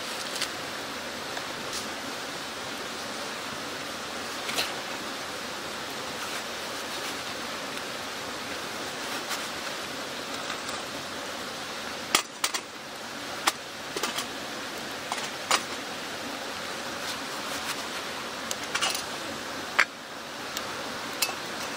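Metal clinks and knocks of a camp pot and metal mugs being lifted and set down on a metal tray, a cluster of sharp clicks from about halfway to near the end, over a steady rushing hiss.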